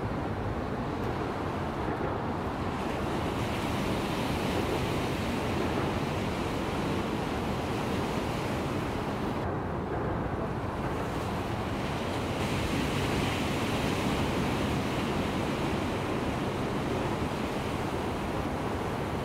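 Ocean waves breaking and surf washing in, a steady rushing noise with no distinct separate crashes.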